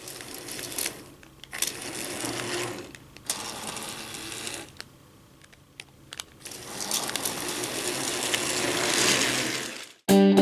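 Trackmaster remote-control Thomas toy engine running on plastic track, its small battery motor and gears whirring and rattling. It grows louder and quieter in turns, then cuts off suddenly near the end.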